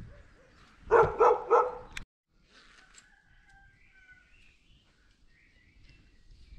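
A dog barks three times in quick succession, then the sound cuts off abruptly and faint bird chirps follow over quiet ambience.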